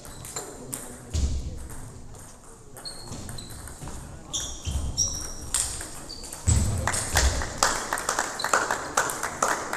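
Table tennis rally: the ball clicking sharply off the rackets and the table again and again, with a few short high squeaks and some low thuds from the players moving on the hall floor.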